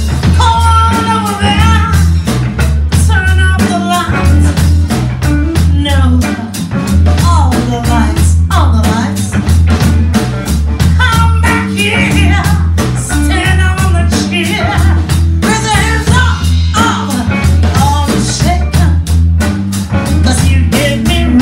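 Live band playing: a woman singing over electric guitar, electric bass and a drum kit keeping a steady beat.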